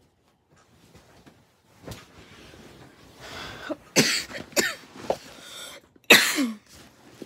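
A boy coughing several times in a row, the coughs starting about halfway through; the last cough is the loudest and trails off in a falling voiced tail.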